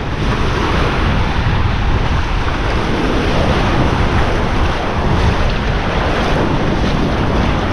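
Steady wash of sea surf and moving water, with wind buffeting the microphone and adding a low rumble.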